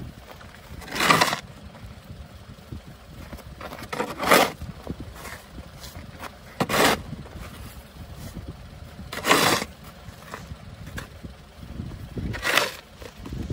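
Plastic snow shovel scraping and shoving light snow, a loud scrape stroke every two to three seconds, five strokes in all.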